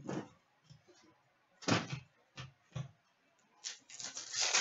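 Trading cards and a foil pack wrapper being handled on a glass-topped table: a few short rustles and taps, then a longer crinkling rustle near the end as the next pack is picked up and opened.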